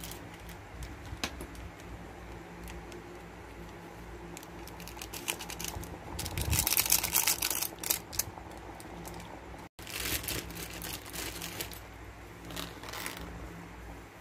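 Water boiling in a small electric pot, with a steady bubbling and scattered small pops. A few seconds in, a foil seasoning sachet crinkles loudly as it is torn and emptied into the pot, followed by shorter rustles.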